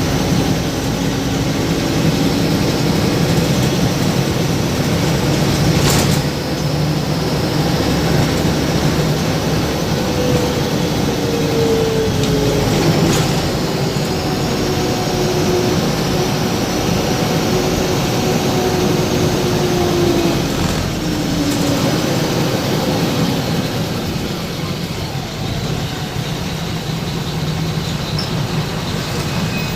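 Steady rumble of a running vehicle, with faint tones drifting slightly in pitch and two sharp clicks.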